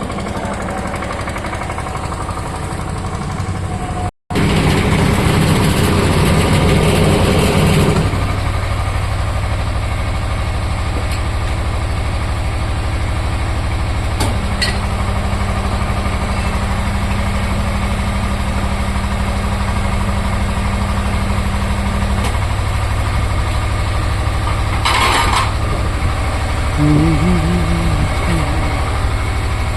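An engine idling steadily with a low hum. A louder rushing noise lies over it for a few seconds, stops abruptly about eight seconds in, and a short rush of noise comes again near twenty-five seconds.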